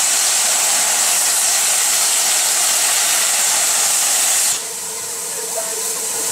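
Safety valves of BR rebuilt Bulleid light Pacific 34046 Braunton blowing off: a loud, steady hiss of steam that cuts off suddenly about four and a half seconds in. The boiler is at full pressure and venting surplus steam.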